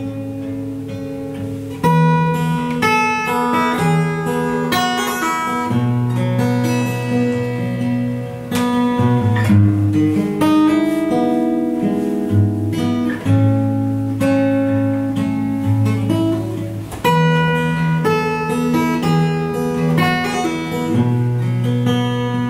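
Acoustic guitar strumming and picking chords, with long held low notes underneath.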